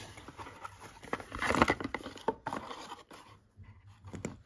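Rustling and scraping of a thin cardboard box being handled as a shaving brush is slid out of it, loudest about a second and a half in, with a couple of light knocks afterwards.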